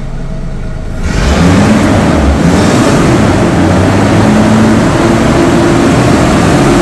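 Toyota Land Cruiser FJ40's straight-six petrol engine running cold, just started and not yet warmed up. About a second in the engine is revved up and held there, much louder and steady.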